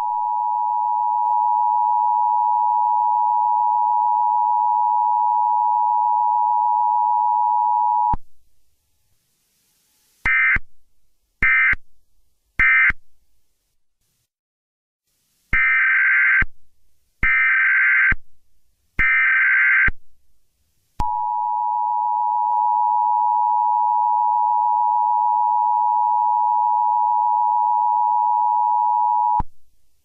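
Harsh electronic tones. A steady pair of tones, like a phone line tone, holds for about eight seconds and then cuts off. After a pause come six short, higher, beep-like bursts, and the steady tone returns about twenty-one seconds in and stops just before the end.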